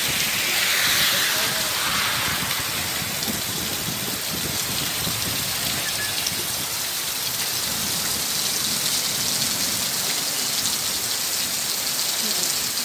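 Heavy downpour falling steadily, the drops splashing onto waterlogged ground, slightly stronger for the first two seconds.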